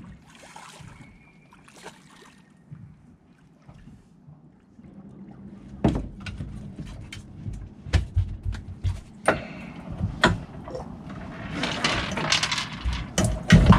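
A spiny dogfish being swung out of the water and handled aboard a fibreglass boat. The first seconds are quiet; then, from about six seconds in, comes a run of sharp knocks and thumps as the shark and rig hit the gunwale and deck. Near the end there is a louder burst of thrashing and splashing as the fish is grabbed.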